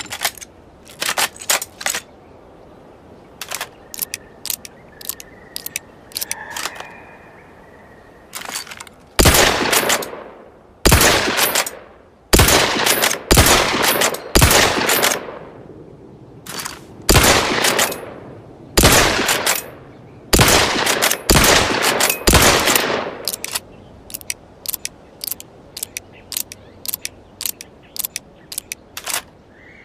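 Repeating rifle firing: about a dozen loud shots, each trailing off in a long echo, coming roughly one a second through the middle of the clip. Before and after them come quieter sharp clicks.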